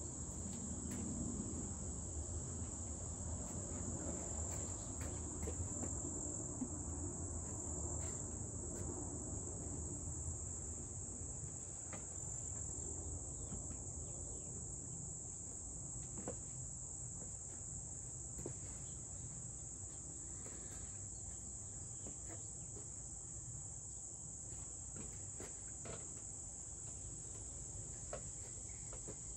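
Insects chirring in a steady high-pitched drone over a low background rumble, with a few faint knocks as things are set down on a stone step.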